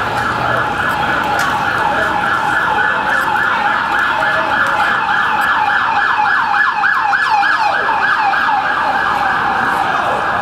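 Emergency vehicle siren on a fast yelp, about five sweeps a second. A second siren tone slides down in pitch about three-quarters of the way through.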